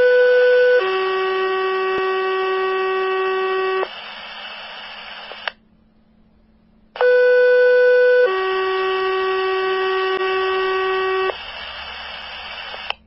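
Fire dispatch two-tone page heard over a radio scanner, sent twice: a short higher tone, then a longer lower tone, then a moment of radio hiss before the carrier drops. This alerts a volunteer fire station's pagers ahead of a mutual-aid callout.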